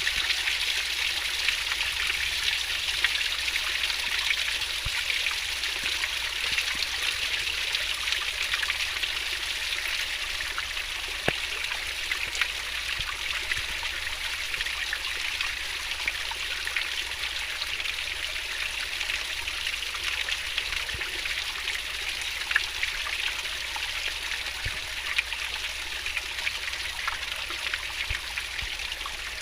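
Fast-flowing stream water babbling and splashing over rocks, a steady continuous rush with fine bright crackle.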